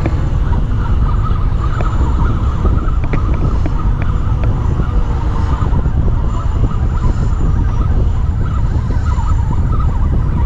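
Loud, steady outdoor noise: low wind rumble on the microphone under a wavering hum of road traffic, with a few faint clicks a few seconds in.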